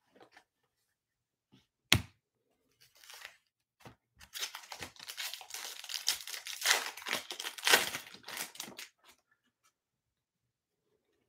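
A sharp tap about two seconds in, then a foil trading-card pack of Bowman Chrome being torn open by hand, its wrapper ripping and crinkling for about five seconds.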